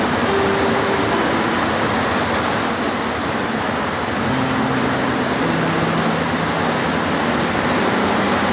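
Steady heavy rain, a dense even hiss. A few faint low hums rise briefly under it, near the start and again around the middle.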